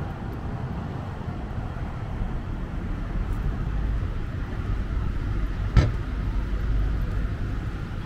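Street traffic: cars running and moving along the road beside the sidewalk, a steady low rumble. A single sharp knock stands out about six seconds in.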